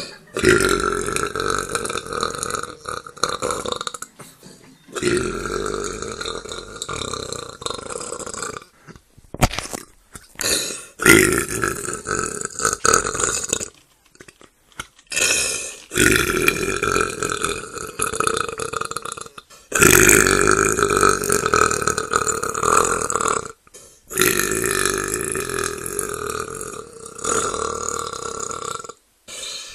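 A man's long, drawn-out belches, one after another: about six of them, each lasting three to four seconds, with short breaks between.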